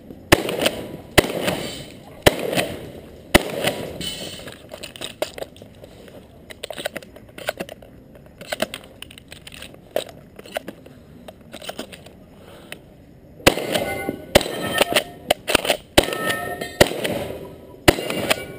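Shotgun shots fired during a timed shooting stage. First comes a string of about four sharp reports roughly a second apart. Then a long stretch follows with only lighter clicks and knocks. Near the end there is another quick string of about six shots.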